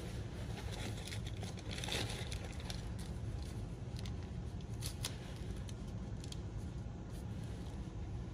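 Steady low room hum with scattered light clicks and rustling, the fullest rustle about two seconds in and a few sharp ticks around four to five seconds in.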